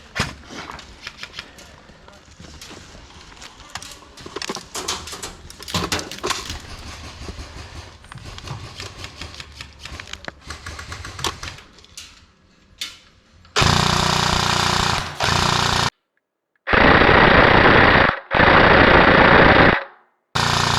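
Airsoft gun firing on full auto in four or five long bursts, each starting and stopping sharply, in the last seven seconds. Before that, scattered clicks, pops and knocks of distant airsoft fire and gear handling.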